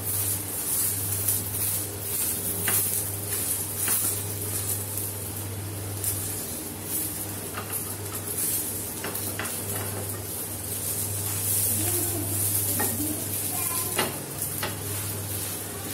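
Rava (semolina) toast sizzling in a little oil on a non-stick tawa, with a wooden spatula scraping and tapping against the pan now and then as the toast is pressed and then lifted to be turned over near the end. A steady low hum runs underneath.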